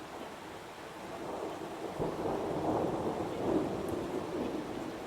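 Heavy rain falling steadily, with a rumble of thunder that swells about two seconds in and fades away near the end.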